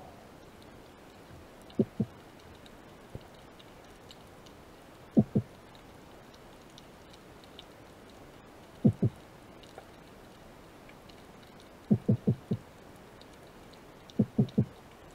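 Short, dull knocks picked up underwater, coming in quick groups of two to four every few seconds, with a faint scattered ticking behind them.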